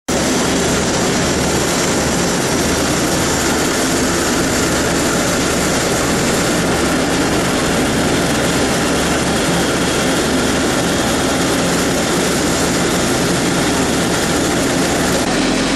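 DW2000 dewatering decanter centrifuge running at speed: a loud, steady machine noise with a constant low hum underneath.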